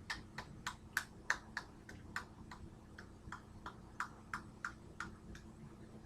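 A fast, even series of light ticking clicks, about three a second, which stops a little over five seconds in.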